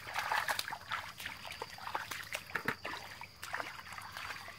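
Hands splashing and sloshing in shallow muddy water while groping for fish: a quick, irregular string of small splashes and dribbles.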